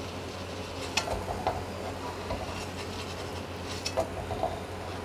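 Steel slotted spoon scraping and knocking against a steel kadai of frying oil, with a few sharp metal clinks about a second in and again near the end, over a steady low hum.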